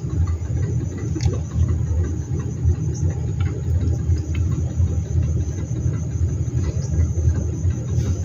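A low, steady rumble that holds at an even level throughout.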